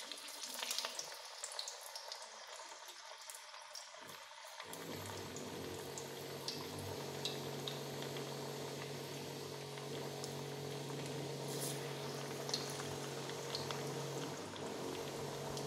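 Banana-flower garelu batter (soaked chana and urad dal) dropped into hot oil and deep-frying, sizzling and bubbling steadily with small crackles. A steady low hum joins about five seconds in.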